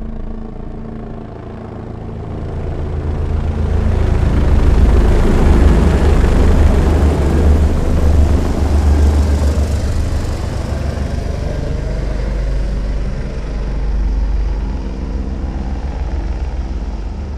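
Two helicopters approaching and flying overhead, the rotor chop growing louder over the first few seconds, loudest in the middle, then slowly fading as they pass.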